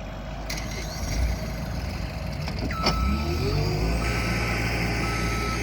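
Diesel truck engine pulling away under load and speeding up, its pitch rising around the middle as it gets going. From about halfway on, a short high beep repeats steadily over it.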